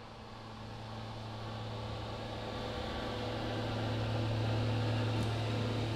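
Veterinary CT scanner running: a steady machine hum with a low tone and a hiss, slowly growing louder.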